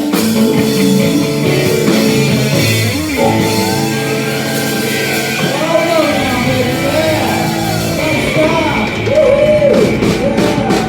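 Rock music with guitar and drums, and a voice singing with gliding, held notes.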